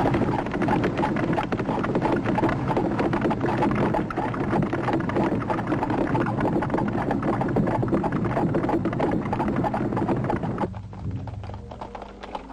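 Horse-drawn carriage travelling fast: hooves and rattling wheels in a dense clatter. The clatter drops away near the end, leaving a quieter, lower sound.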